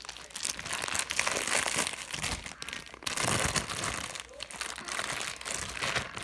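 Plastic zip-top bag crinkling and rustling in irregular bursts as hands squeeze it and peel it off a lump of slime.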